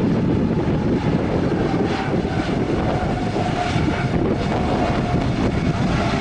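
Airliner jet engines running as a plane passes, a steady rumble with a faint whine that slowly falls in pitch, and gusty wind buffeting the microphone.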